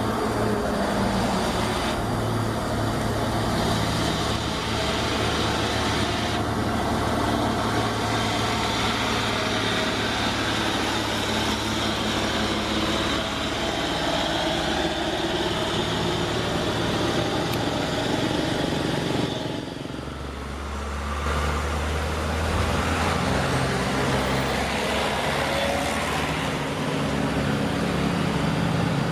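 RC excavator running: a steady engine-like drone whose pitch shifts as it works, dipping briefly about two-thirds of the way through.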